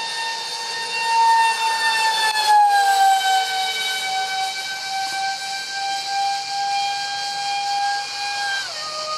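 Twin electric ducted fans of a Freewing Su-35 RC jet (5-blade rotors, 2600kv motors on 6S) screeching in flight: a high-pitched whine with several overtones that steps down in pitch a couple of seconds in and drops sharply again near the end. The screech is made worse by vibration from cheap shaft adapters and fan mounting pads that have come loose.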